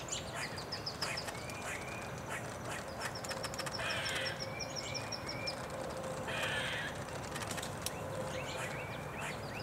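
Wood duck ducklings peeping in quick high-pitched runs, with repeated bird calls and two louder harsh calls, one near the middle and one a couple of seconds later.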